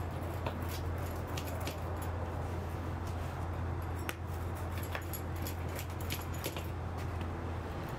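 Rolling pizza cutter wheel slicing through a crisp pizza crust on a metal pizza tray: irregular crunches and small metallic clicks of the wheel against the tray, over a steady low hum.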